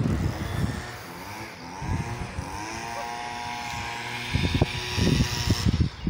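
Gusty wind buffeting the microphone, easing about a second in. In the lull a distant engine hums, its pitch rising and then holding steady. The buffeting returns strongly about a second before the end.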